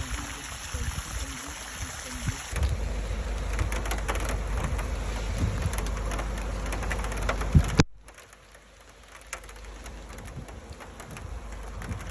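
Rain falling, with scattered drop ticks. A stronger stretch with a low rumble underneath runs from about two and a half seconds in until it cuts off suddenly near eight seconds, giving way to quieter rain.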